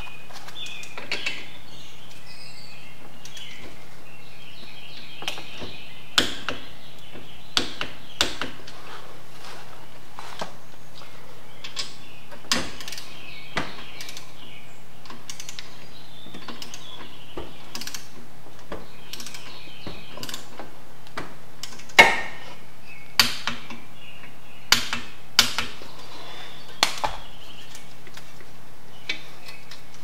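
A socket wrench ratcheting and a torque wrench clicking as the brake caliper slider bolts are tightened to torque: scattered short metallic clicks and taps, with a few sharper clicks about two-thirds of the way in, over a steady low hum.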